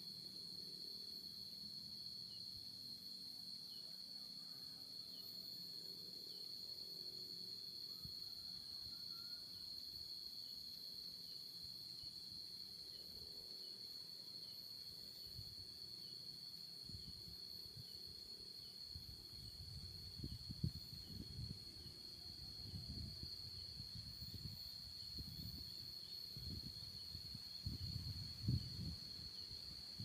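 Steady high-pitched insect trill, like crickets, running without a break, with a faint tick about once a second beneath it. From a little past halfway, low thumps and rumbles come in and grow more frequent toward the end.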